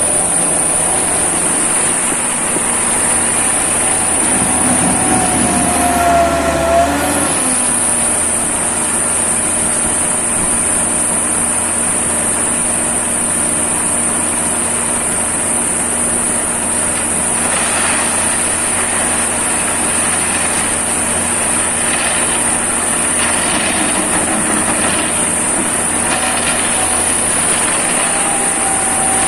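Diesel engine of an SLM 4000 self-loading concrete mixer running steadily. A brief falling whine comes about six seconds in, and there are irregular knocks and clatters in the second half.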